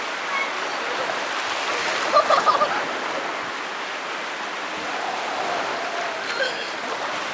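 Steady wash of Black Sea surf breaking and running in over shallow water. Brief faint voices or shouts about two seconds in.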